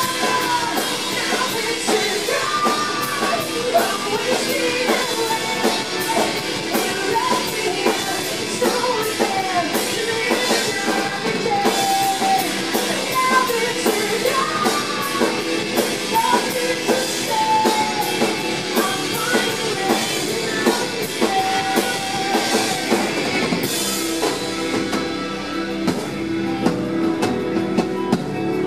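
Live rock band playing: a female lead singer's vocal over electric guitars and a drum kit. About 24 seconds in the singing stops and the cymbals drop back while the guitars play on.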